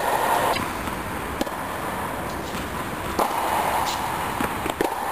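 Tennis ball struck by rackets during a rally: a sharp pop about every one and a half to two seconds, three in all, over a steady background hum.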